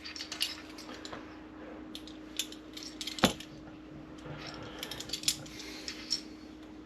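Small metallic clicks and light taps of parts and tools being handled during a coffee-maker repair, with one sharper knock about three seconds in, over a faint steady hum.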